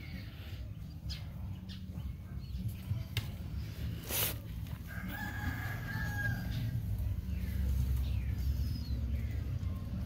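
A held, pitched animal call about five seconds in, with short downward-sliding calls around it, over a steady low rumble and a brief rustle just before the long call.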